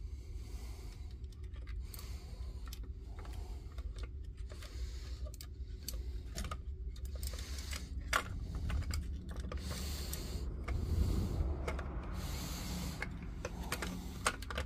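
Small clicks and light rubbing of plastic parts as the laser head of a DeWalt DCE089G laser level is pushed and slid into its housing, over a steady low hum.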